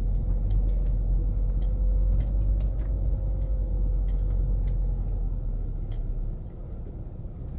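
Low, steady rumble of a car's engine and road noise heard from inside the cabin while driving, with light irregular ticks over it.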